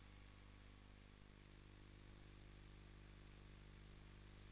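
Steady electrical hum with a layer of hiss, unchanging throughout: the noise floor of an analog FPV video recording, with no motor sound.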